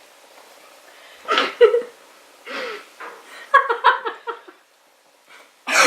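A person breathing hard in short gasping, whimpering bursts, reacting to the burn of a raw habanero pepper in the mouth.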